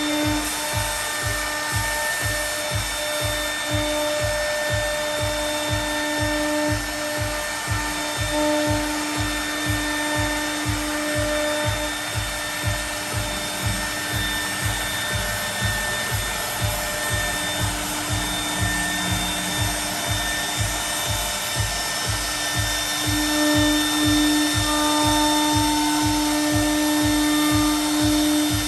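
CNC router spindle running with a high drill-like whine as it mills aluminium composite panel. The whine's pitch holds steady, fades in the middle and comes back louder near the end. A regular low thumping about twice a second runs underneath.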